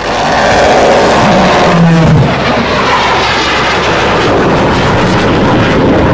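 Fighter jet flying past, its engines giving a loud, steady roar that starts abruptly, with a brief low hum about two seconds in that drops in pitch.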